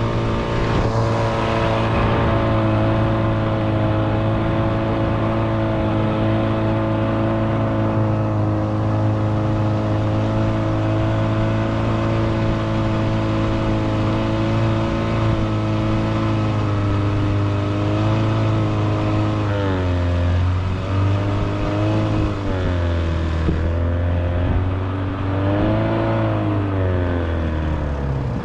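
A motor vehicle engine running steadily, then rising and falling in pitch several times in the last ten seconds as it is throttled up and down during slow manoeuvring.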